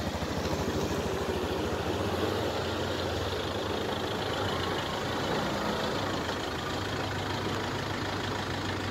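A vehicle engine idling steadily nearby.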